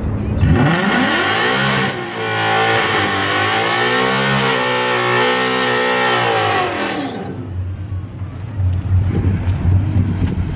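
Ford Mustang GT's 5.0 Coyote V8 held at high revs during a burnout, the rear tyres spinning and smoking. The revs climb sharply about half a second in and hold high and wavering for about six seconds. Then they fall away to a lower, uneven rumble.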